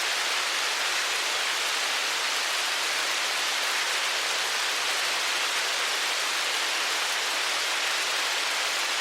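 Hailstorm: hail and rain falling densely, a steady, even hiss with no single impacts standing out.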